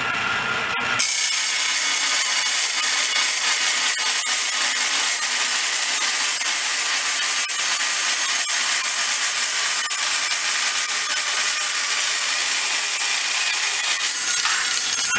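Slowed-down table saw with a carbide blade cutting through steel plate. About a second in, the blade bites into the steel and the saw's steady running gives way to a loud, harsh, high-pitched hiss that holds until near the end, when the blade comes free and the saw runs on.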